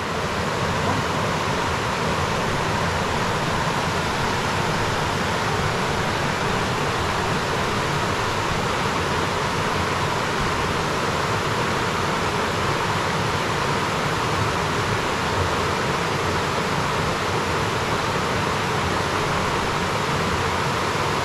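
Waterfall rushing steadily, an even hiss of falling water that does not change.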